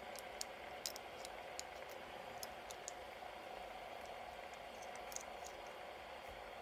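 Faint, steady whir of several metal fidget spinners spinning on a wooden table, with scattered light clicks.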